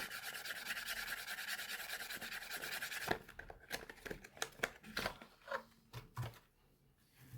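Soap packaging being unwrapped by hand: a dense, rapid rustling for about three seconds, then scattered crinkles and light taps.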